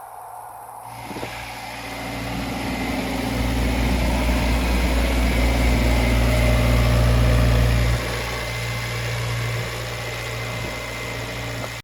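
Atlas Copco XAS68 compressor's four-cylinder Kubota diesel engine running at a steady speed. It grows louder over the first several seconds, then drops sharply in level about eight seconds in and again a little later.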